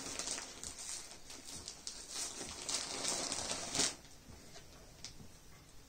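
Cotton nighties being handled and pulled from a stack: cloth rustling and crinkling, which stops about four seconds in.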